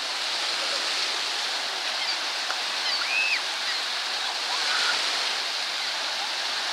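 Small waves washing and breaking along a sandy lake shore: a steady rush of water.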